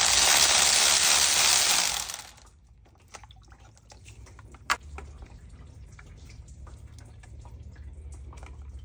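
Cordless electric ratchet running, backing a thermostat housing bolt out of the engine, then stopping abruptly about two seconds in. Faint clicks and knocks of tool handling follow, with one sharp knock about halfway through.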